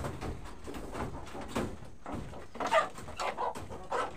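A few short animal calls, the loudest about two thirds of the way in.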